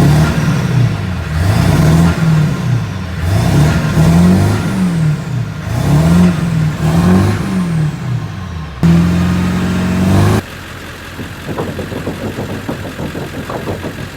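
2000 Ford F-350's 7.3 L Powerstroke turbo-diesel V8 revved hard again and again, its pitch climbing and falling about once a second. It is then held high and steady for a second and a half before dropping away suddenly about ten seconds in, leaving a quieter rattling. The engine now runs after a no-start cured by replacing fuel lines and bleeding them.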